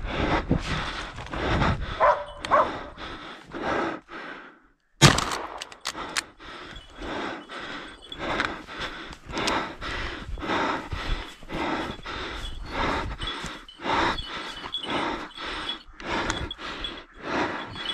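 Footsteps crunching through snow at a walking pace, about two steps a second. They break off into near quiet for half a second about four and a half seconds in, and a sudden loud knock follows.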